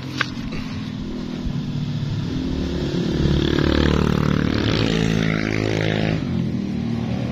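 A motorcycle approaching and passing close by: the engine grows louder and higher as it comes through the bend, is loudest about halfway through, then drops in pitch and fades as it moves away. A short click sounds just after the start.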